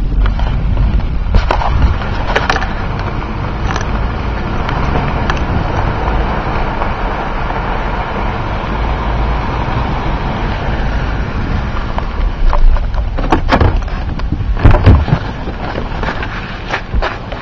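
Steady low rumble of a pickup truck heard from inside the cab, with a few sharp knocks scattered through it, the loudest near the end.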